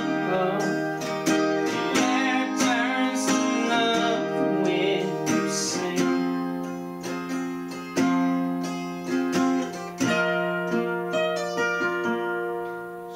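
Solo acoustic guitar fingerpicked through the song's closing instrumental passage, notes ringing on and overlapping, with a few firmer strokes in the second half.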